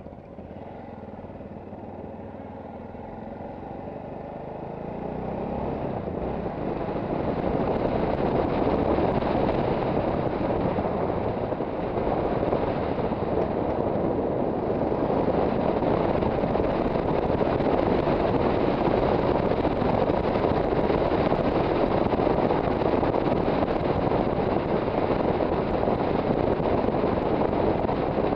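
Yamaha XT660Z Ténéré's single-cylinder engine running on the move, mixed with rushing wind over the camera microphone. The sound grows louder over the first several seconds, then holds steady.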